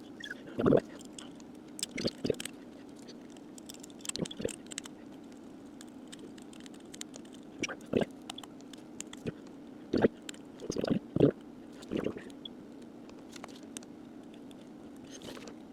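Irregular light clicks and taps of small parts being handled, about a dozen spread unevenly, over a steady low hum.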